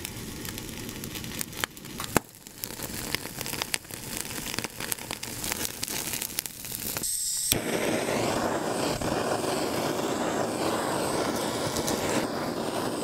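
Salmon and sea bream heads crackling and popping as they grill over a gas burner's flame. About seven and a half seconds in, a steady hissing rush takes over: a butane kitchen torch searing the grilled salmon head.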